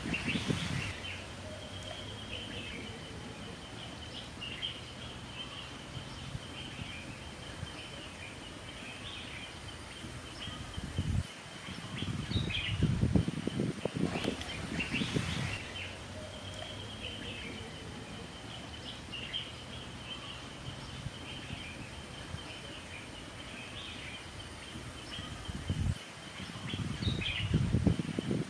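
Birds chirping over a steady outdoor background. Louder muffled rustling and handling noise comes in two stretches, about midway through and again near the end.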